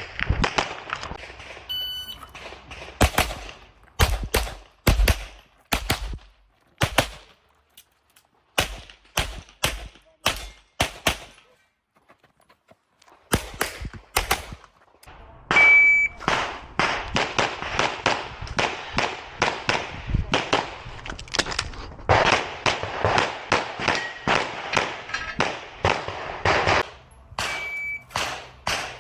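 Handgun shots fired in quick strings, with a pause partway through and a long, rapid run of shots later on. Three short high electronic beeps sound among them, at the start, middle and near the end.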